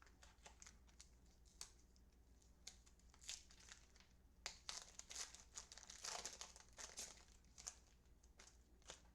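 Faint crinkling and tearing of a trading-card pack wrapper being handled and opened, a run of short crackles that is thickest about six to seven seconds in.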